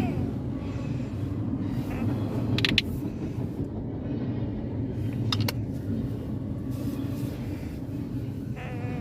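Container freight train rolling past with a steady low rumble. Two brief sharp clicks, about two and a half seconds apart, sound partway through.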